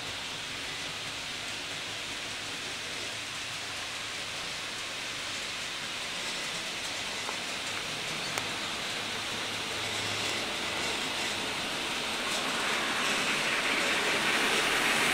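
OO gauge model diesel locomotives and wagons running on the layout's track, a steady hiss of wheels on rail and motor whirr. It grows louder near the end as a train with a long rake of hoppers draws close. There is one brief click about eight seconds in.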